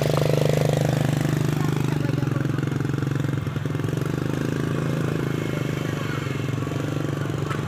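Small motor-scooter engines running steadily at low revs close by, with one scooter creeping past at walking pace.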